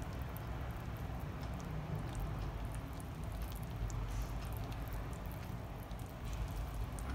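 Wire whisk stirring thick chocolate muffin batter in a stainless steel bowl: faint squishing with light, scattered ticks of the wires against the bowl, over a low steady hum.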